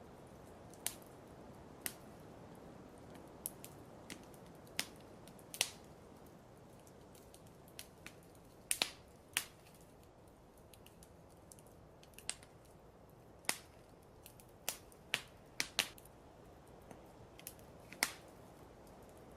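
Fireplace crackling: irregular sharp pops and snaps, about one a second, over a steady low hiss.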